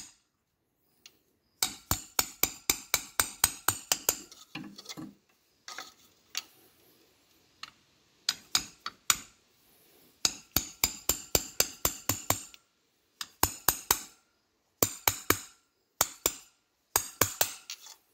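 Hammer tapping on a socket to drive an oil seal into a water pump housing: runs of quick, sharp metal-on-metal taps, about five a second, with short pauses between the runs.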